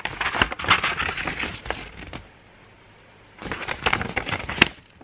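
A paper scroll rustling and crinkling as it is handled and shifted, in two bursts: one of about two seconds at the start and a shorter one near the end.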